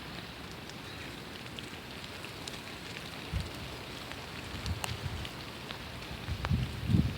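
Steady rain falling, with scattered sharp drop ticks and a few low dull thumps that are loudest near the end.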